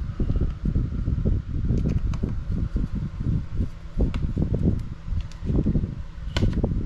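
Uneven low rumble of hands and parts being handled close to the microphone, with a few small sharp clicks of hardware or tools, the loudest about six and a half seconds in.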